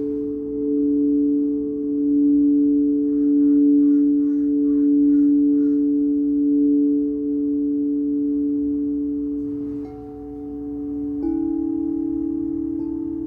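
Singing bowls sounding a steady low hum of two tones that swell and fade in slow, pulsing beats. About 11 seconds in, a bowl is struck and a new, slightly higher tone rings out and slowly dies away with a quick wobble.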